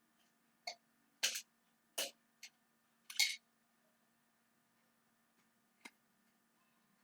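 Six short, sharp clicks and taps scattered over about five seconds, a few of them louder double taps, over a faint steady hum.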